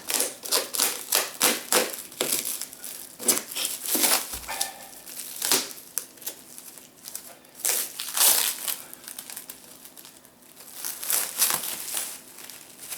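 Plastic wrapping around a coil of coaxial cable crinkling and crackling in irregular bursts as it is cut open and handled, quieter for a moment shortly after the middle.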